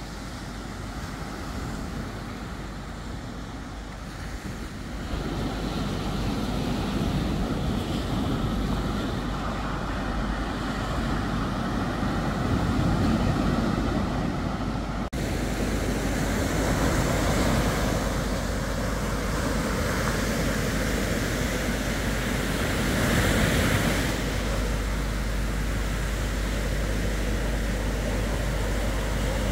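Surf breaking and washing up a sandy beach, with wind rumbling on the microphone. The surf grows louder about five seconds in.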